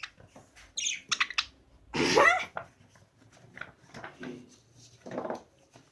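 Pet birds chirping: a few quick high chirps about a second in, then a louder call that sweeps upward, followed by softer chirps.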